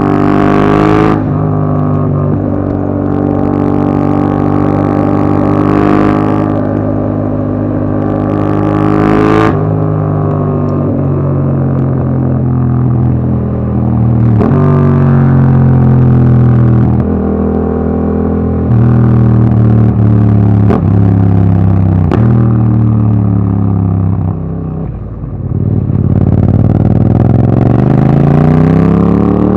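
Yamaha MT-07's parallel-twin engine running through an Akrapovic Racing Line exhaust with its dB killer fitted, on the move: the engine note holds steady between several gear changes, dips briefly, then rises in pitch as the bike accelerates near the end.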